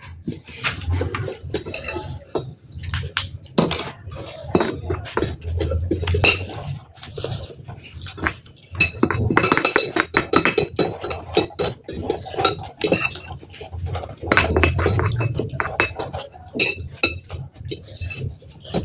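Metal forks and a wooden spoon clinking and scraping against glass bowls of noodles in many short, irregular clicks, with chewing mixed in between.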